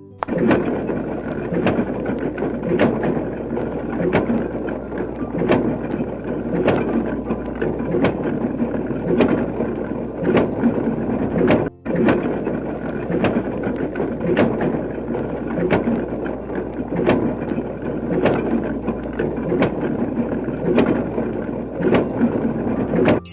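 A construction machine sound effect: a steady mechanical rumble with a low hum and a regular knock about once a second. It drops out for an instant about halfway through.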